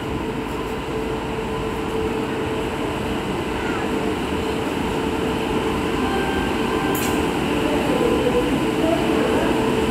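Indian Railways electric locomotive hauling a passenger train as it rolls in along the station tracks, a steady rumble with a constant hum that grows gradually louder as it nears.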